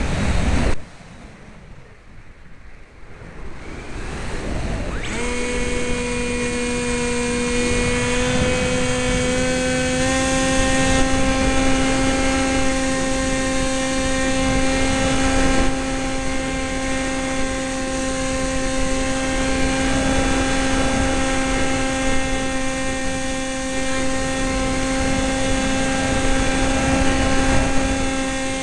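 Sky Surfer RC plane's electric motor and propeller whining steadily over a rush of air. The sound drops away sharply about a second in, and the whine comes back in around five seconds, steps up a little in pitch a few seconds later, then holds steady.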